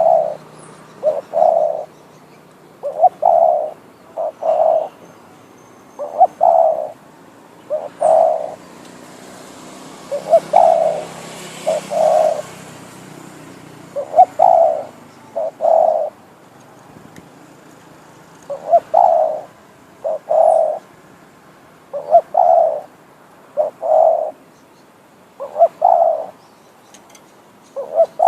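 Spotted dove kept as a decoy bird, cooing over and over: short low coo notes grouped in pairs and triplets, a new phrase every one to two seconds.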